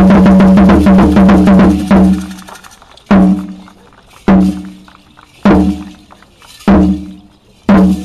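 Aztec dance drumming on a large drum: a rapid run of strokes for the first two seconds or so, then single heavy beats about once a second, each ringing out briefly.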